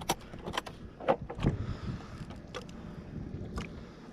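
Short knocks and clicks of gear being handled aboard a kayak, about six spread over four seconds, over a steady low rumble of wind and water.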